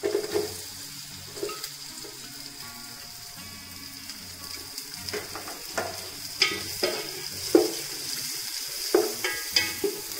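Sliced onions hitting hot oil and butter and frying with a steady sizzle. From about halfway on, a wooden spatula stirs them, scraping and knocking against the pot.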